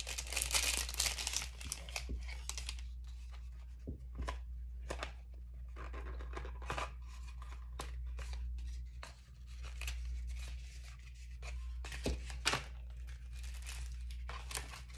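Packaging being crinkled and torn open by hand to get a piece of jewelry out. A dense rustle for about the first two seconds, then scattered crackles and clicks.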